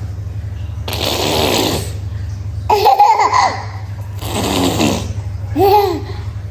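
A toddler laughing in short bursts: breathy giggles, twice rising into a high squeal, about three seconds and near six seconds in. A steady low hum runs underneath.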